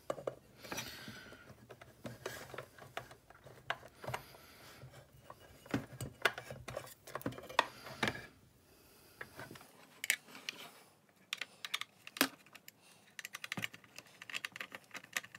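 Irregular small clicks and taps of hands handling a plastic security-camera housing and the metal camera mounting plate inside it, with a screwdriver working in the housing near the end.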